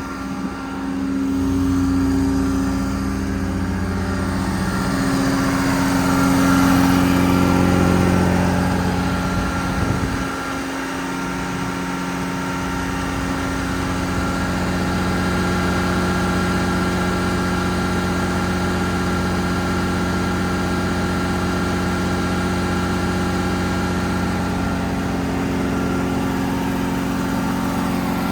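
Ram 5500's 6.7 Cummins diesel engine running. Its note swells twice in the first eight seconds, drops back about ten seconds in, then holds steady.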